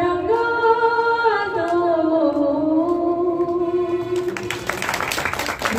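A woman sings the closing phrase of a Hindi Holi bhajan, holding long notes over an electronic keyboard. About four seconds in, the song ends and the audience breaks into applause.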